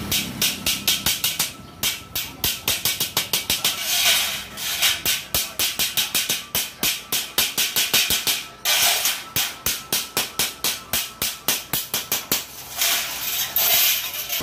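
Small hammer tapping rapidly on a metal furring channel, light metallic strikes about five a second in runs with short pauses between them.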